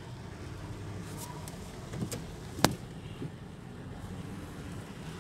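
Steady low rumble of a car heard from inside its cabin in slow traffic, with a few sharp taps, the loudest about two and a half seconds in.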